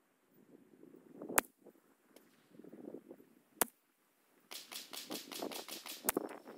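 Three single shots from a Christensen Arms .22 LR rimfire rifle firing SK Standard Plus ammunition, about two and a half seconds apart. A fast, even ticking rattle comes for a second or so just before the third shot.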